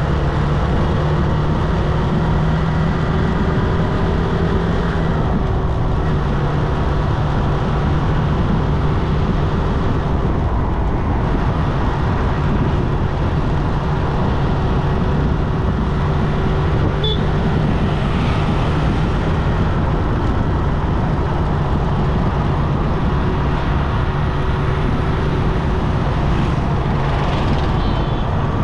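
Motorcycle ride in traffic: the bike's engine running at a steady pitch under continuous wind and road noise.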